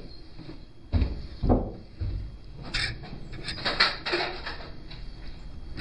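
Tools and metal scooter engine parts being handled and knocked: a few dull knocks about a second in, then a run of lighter clicks and scrapes.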